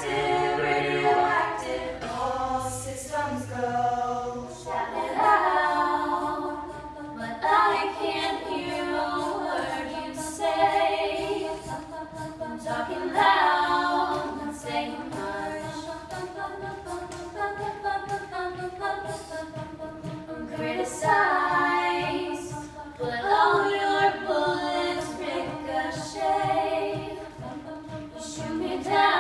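A small mixed group of teenage singers singing an a cappella song arrangement in parts, voices only, in phrases a few seconds long.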